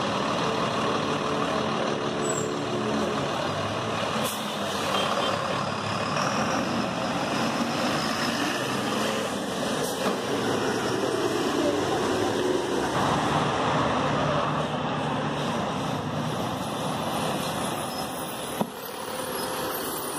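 Mercedes-Benz OF-1724L city bus's diesel engine pulling away from the kerb and passing close by, over steady traffic noise. A single sharp click near the end.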